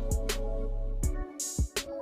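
Background music with a drum beat, a steady bass line and held instrumental notes; the bass drops out about halfway in, leaving drum hits and cymbal-like strokes.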